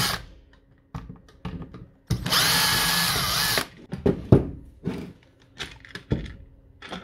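Cordless drill-driver spinning out a screw from a DeWalt Flexvolt battery's plastic casing for about a second and a half, its whine dropping as it stops. Then a run of short clicks and knocks as the plastic side cover is pried off by hand.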